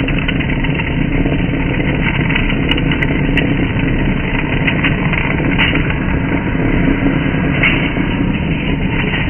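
Metal lathe turning a workpiece under a coolant stream: steady mechanical running and cutting noise, with a few faint ticks.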